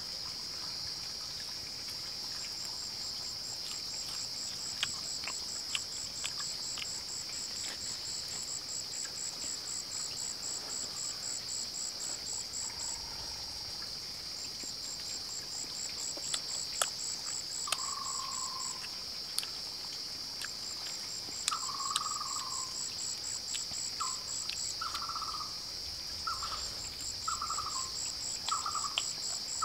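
Forest ambience: a steady high-pitched insect drone throughout, overlaid by repeated trains of very fast, higher pulsing from another insect. From about halfway a bird gives short falling calls, coming in a quick series near the end, and a few faint sharp clicks sound now and then.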